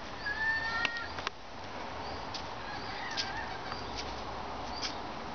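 Dog whining at play: a short high-pitched whine about half a second in, then a briefer, lower one, followed by faint scuffling clicks.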